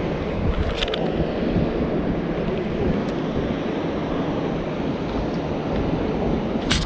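Wind buffeting the microphone: a loud, uneven low rumble, with a sharp click about a second in and another near the end.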